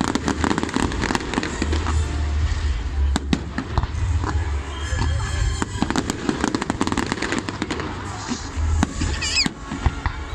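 Fireworks display: aerial shells bursting and crackling in rapid succession, dense sharp reports through most of it, thinning out near the end.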